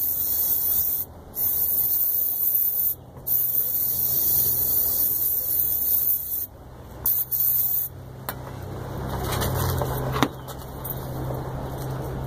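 Aerosol can of brake cleaner spraying in long hissing bursts, broken by short pauses about one, three and six and a half seconds in. The spraying stops about eight seconds in, and a couple of light clicks follow.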